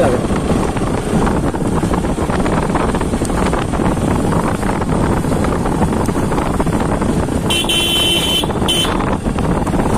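Bajaj Pulsar RS200's single-cylinder engine running steadily under way, with wind on the microphone. About seven and a half seconds in, the horn sounds twice: one honk of under a second, then a short one.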